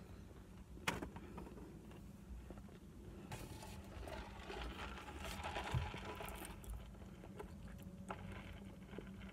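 Quiet eating in a car: a muffled cough held behind a fist a few seconds in, then sipping through a straw near the end.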